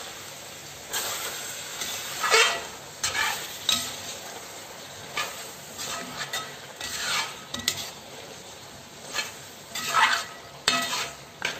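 A metal spoon stirring a thick, simmering chicken curry in a metal pot, scraping against the pot in irregular strokes about once a second, over a steady sizzle of the gravy as it reduces and thickens in coconut milk.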